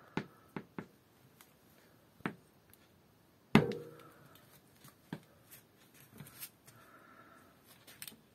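Scattered sharp clicks and taps of close handling and movement, with one louder thump about three and a half seconds in. No voices.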